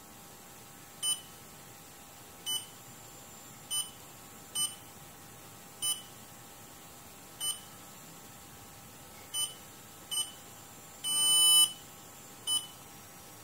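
Honeywell TB3240W digital thermostat's buzzer beeping as its front keys are pressed: nine short beeps at irregular intervals of about one to two seconds, and one longer, louder beep near the end. The beeps show that the unit now has power and responds to its keys after the repair.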